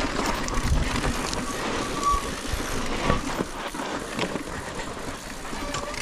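Mountain bike riding down a dirt trail: steady tyre and wind noise with scattered rattling knocks over bumps, and a short disc-brake squeal about two seconds in.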